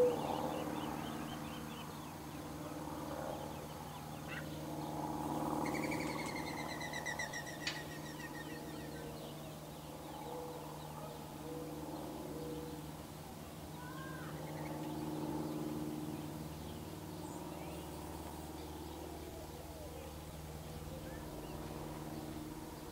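Gambel's quail hen clucking softly while brooding her chicks, short low notes now and then, with faint high peeps. A rapid trilled bird call comes about six seconds in. A steady low hum runs underneath.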